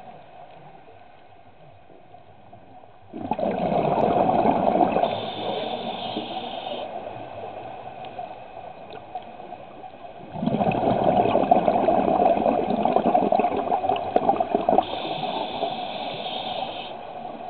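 Scuba regulator exhaust bubbling underwater as a diver breathes out: two bursts of bubbles about seven seconds apart, the first about three seconds in. Each starts suddenly and trails off over several seconds.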